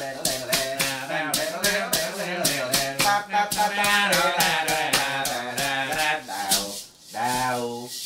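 Music with a maraca shaken in a fast, steady beat, about four to five strokes a second, over a pitched melodic line. The music drops out briefly near the end.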